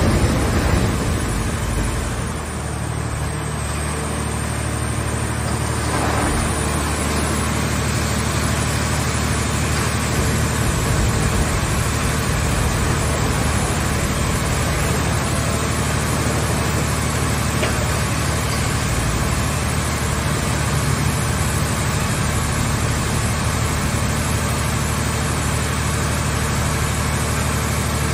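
Scrap-car baling press's power unit running steadily, driving the hydraulic press cylinders with a continuous machine drone.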